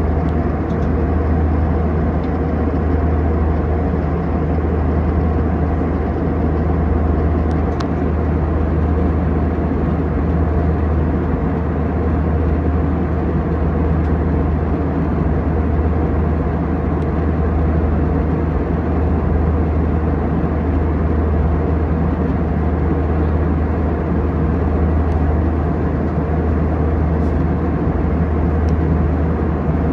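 Jet airliner cabin noise in cruise: the steady low drone of the turbofan engines and the airflow past the fuselage, heard inside the cabin at a window seat.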